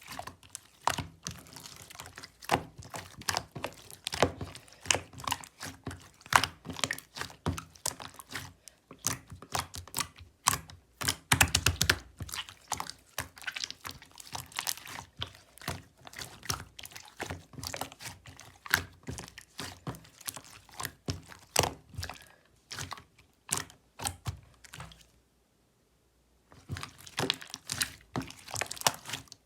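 Clear slime being squished and pressed by hand, giving a dense, irregular run of sticky clicks and pops, with a short pause about 25 seconds in.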